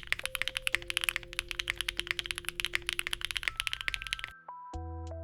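Fast typing on a Neo80 mechanical keyboard with factory-lubed HMX Desert linear switches, a POM plate and GMK keycaps: a rapid run of keystroke clacks. The typing stops about four seconds in, and steady background music begins near the end.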